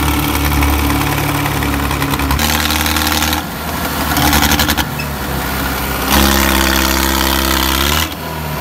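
Mahindra Arjun 605 DI tractor's diesel engine labouring under heavy load as it pulls a loaded trolley out of sand, its rear tyre spinning. The engine note shifts several times, dipping and picking up again near the end.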